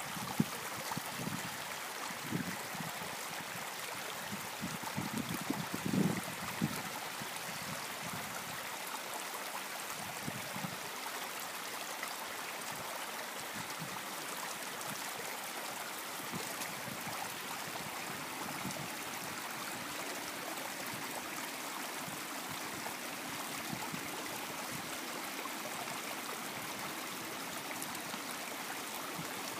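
Creek water running steadily with an even rush. Gusts of wind buffet the microphone with low rumbles during the first several seconds, then die down.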